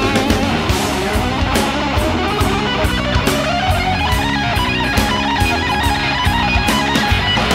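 Hard rock band recording in an instrumental passage: distorted electric guitar over bass and drums, with a steady beat and no singing.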